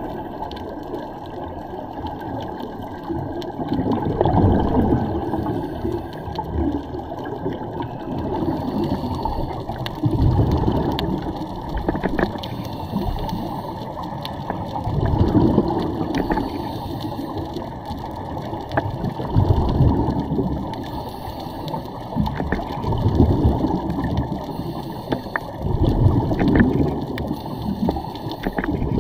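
Scuba divers' regulator exhaust bubbles gurgling, heard underwater. The sound swells in bursts every few seconds, one for each exhaled breath.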